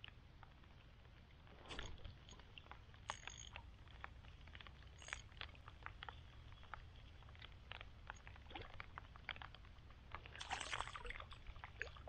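Faint water sounds: small splashes and trickling with scattered light clicks, and a louder splash about ten and a half seconds in.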